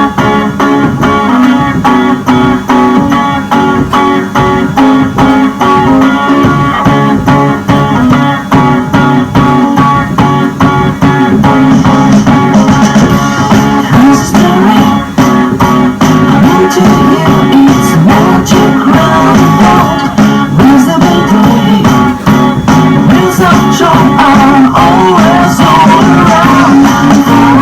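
Coin-operated kiddie ride train playing its ride song through its loudspeaker: loud, steady music with a beat, guitar and singing.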